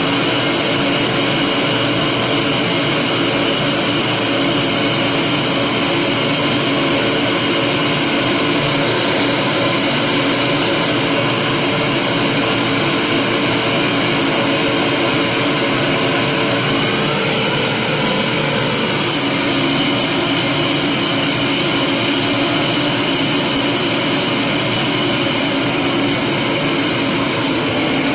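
Vacuum cleaner running steadily: a constant whine over the rush of air.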